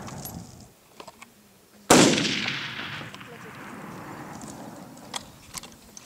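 A single hunting rifle shot about two seconds in: a sharp crack followed by a long echoing tail that fades over several seconds. A few faint sharp clicks come before and after it.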